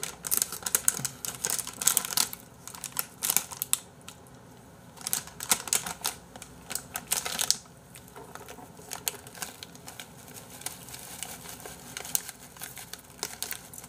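Crinkling and crackling of a snack pouch of seasoned seaweed flakes (dol-jaban) being handled and torn open: irregular runs of sharp crackles, densest in the first few seconds and again around the middle, sparser toward the end.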